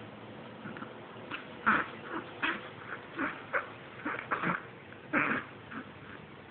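Yorkshire terrier reverse sneezing: a run of short, sharp snorting breaths pulled in through the nose, several a second in an irregular string.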